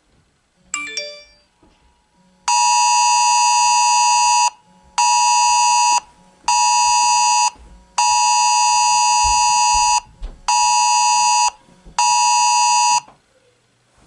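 iPhone 6 sounding the Emergency Mobile Alert attention tone for an incoming emergency broadcast: a loud, harsh two-pitch alarm tone in one long blast and two short ones, repeated twice. A brief chime about a second in.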